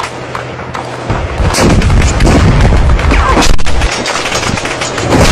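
Battle sounds of gunfire and explosions: quieter for the first second, then a dense run of shots and booms over a heavy low rumble, with another loud blast near the end.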